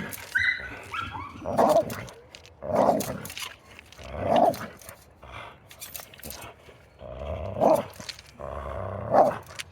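A large dog giving a series of short, growly barks, about six of them, spaced a second or more apart, with a quieter lull in the middle.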